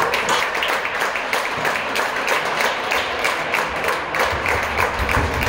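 Crowd applause: many hands clapping in a dense, irregular patter, with a low rumble coming in near the end.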